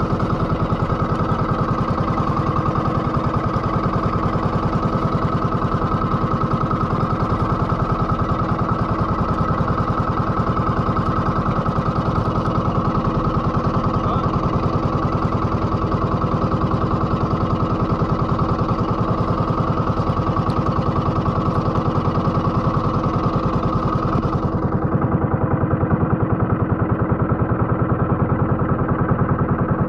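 Small fishing boat's engine running steadily at an even speed, a dense continuous chugging. Near the end the hiss above it drops away and the engine comes through slightly louder.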